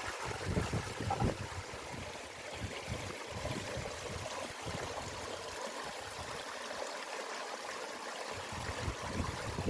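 Steady rushing noise of a stream, with irregular low rumbles underneath.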